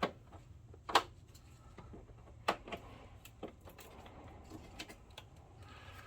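A power cord's plug being pushed into the projector and handled: a few sharp clicks and knocks, the loudest about a second in and another about two and a half seconds in, over a low steady hum.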